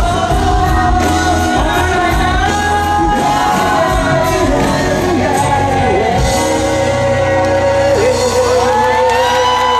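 Live pop song sung by a group of male and female singers over an amplified band with a steady bass, heard from the audience. Near the end the voices hold a long note that climbs higher.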